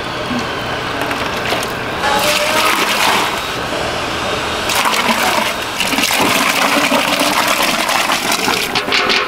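Soup ladled with a steel ladle and poured from one metal pot into another: liquid splashing and gushing in two long pours, with a few clinks of metal on metal.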